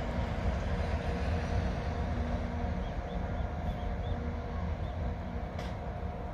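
JR Freight EF64 DC electric locomotive running away along the track: a low rumble with a steady hum, fading slightly. A few faint high chirps about halfway through.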